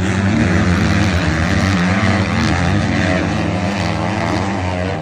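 450cc-class motocross bikes racing past, their engines revving hard with the pitch rising and falling as the throttle is worked. The sound swells about when it starts and stays loud throughout.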